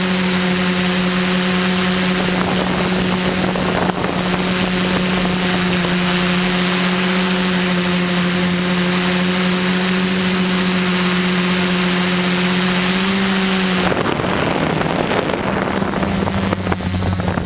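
Quadcopter's electric motors and propellers, heard through its onboard camera, humming at a steady pitch, with wind noise. About 14 seconds in the pitch changes and a lower hum takes over.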